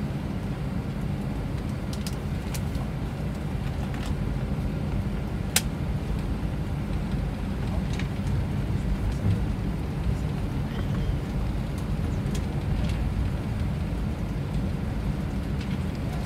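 Airliner cabin noise while taxiing: a steady low rumble from the engines and the rolling aircraft, with a few faint clicks and one sharper click about five and a half seconds in.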